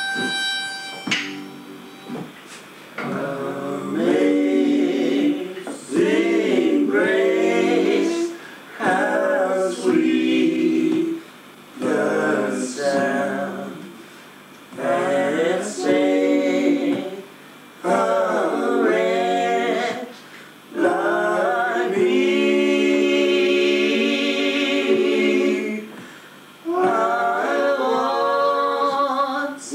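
A small group of people singing unaccompanied, in sung phrases a few seconds long with short breaks between them. A held instrumental note ends about a second in.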